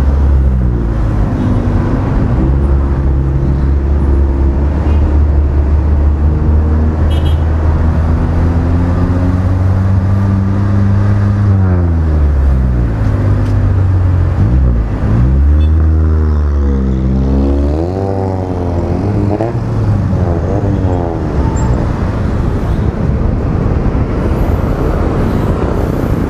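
Motorcycle engine running in city traffic, heard from the bike itself: a steady drone for the first several seconds, then rising and falling in pitch again and again through the middle as it accelerates and eases off, with surrounding traffic noise.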